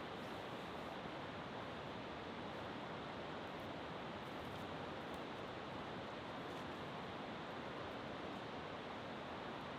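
Steady, even rush of falling water, a constant hiss with no breaks or changes.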